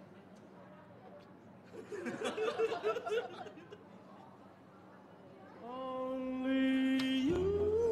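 Low room tone, then a person's brief laughter about two seconds in. From about six seconds a music cue begins with long held notes, gliding up into a wavering high note near the end.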